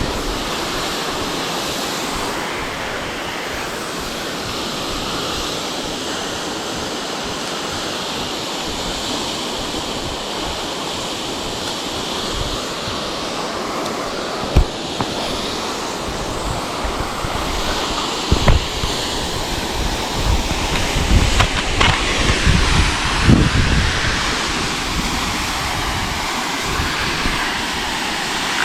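Waterfall's steady rush of falling water, close by, with wind gusting on the microphone in low rumbles, most often in the second half.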